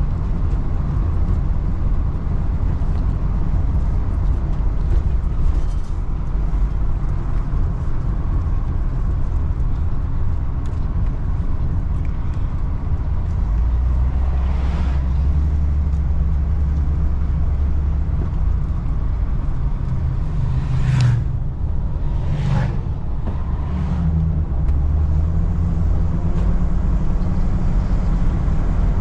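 An RV on the move: a steady low rumble of engine and road noise, with a few brief louder whooshes about halfway and past two-thirds of the way through.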